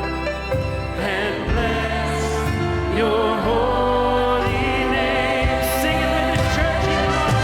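Choir and orchestra performing a slow worship song: sustained, wavering chords over a steady bass.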